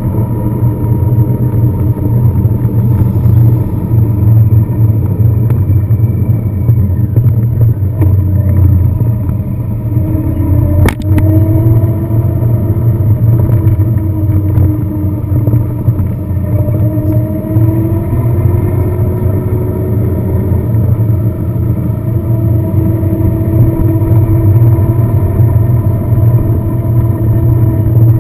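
A car being driven: steady low road and engine rumble, with the engine note rising and falling from about ten seconds in. A single sharp click comes near eleven seconds.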